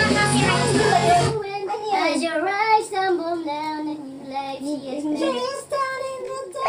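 A song played back for a guess-the-song game, with full band accompaniment, stops abruptly about a second and a half in; a single high voice then sings a slow, wavering melody alone without accompaniment.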